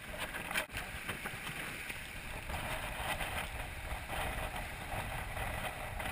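Wind buffeting the microphone and water rushing along the hull of a Swan 45 racing yacht sailing fast through choppy water, a steady rushing noise.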